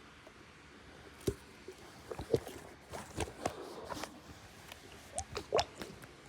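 A squishy toy being squeezed and handled: an irregular run of short clicks and squeaks that starts about a second in and goes on for about five seconds.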